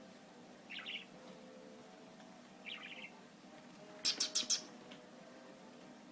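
Budgie chirping: two short soft chirps, then a louder run of four quick chirps about four seconds in.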